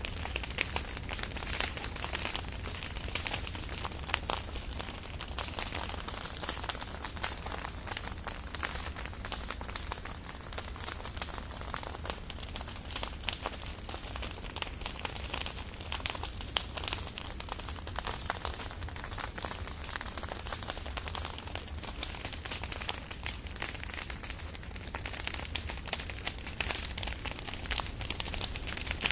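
Fire crackling and popping densely and irregularly, with a steady low rumble beneath.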